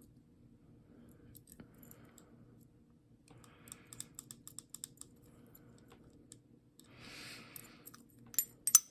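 Small metallic clicks and taps from handling a lever padlock and its picking tools, with a couple of sharper, louder clicks near the end.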